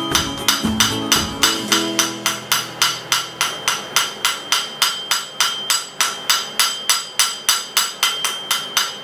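Hand hammer striking red-hot steel on an anvil in a steady rhythm, about four blows a second, each blow with a bright ringing tone from the anvil.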